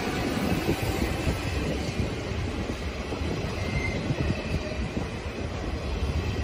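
Container freight train rolling past at close range: a steady rumble of steel wagon wheels on the rails with quick rhythmic clicking, and a brief faint wheel squeal about four seconds in.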